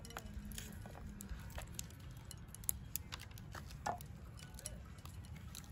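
Hands cleaning banana flower florets over a woven bamboo tray: light scattered ticks and rustles as the florets are handled and their pistils pulled out, over a steady low background rumble.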